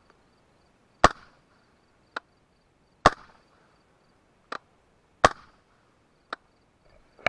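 Three suppressed 5.56 rifle shots about two seconds apart, fired through an AB Suppressors Raptor with no reflex sleeve and the standard end cap. Each shot is followed about a second later by a much fainter sharp crack.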